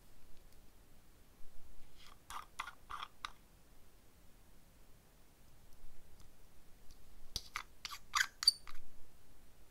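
Long extension fingernails tapping and clicking against small plastic glitter jars: a quick run of about five clicks about two seconds in, and another of about six about seven seconds in.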